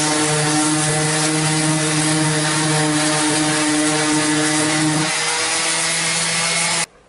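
Corded handheld electric power tool running steadily at full speed against the log frame of a rustic dresser, a steady motor hum with a hiss over it. Its pitch drops slightly about five seconds in, and it cuts off abruptly near the end.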